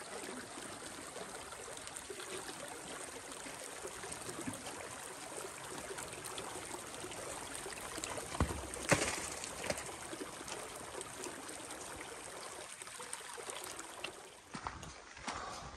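Glacial meltwater stream running steadily beneath a block of ice, with a couple of sharp knocks a little past halfway.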